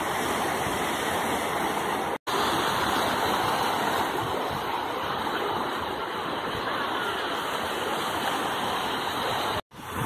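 Small sea waves washing in over a shallow sandy shore: a steady rushing surf, broken by two brief silent gaps, about two seconds in and near the end.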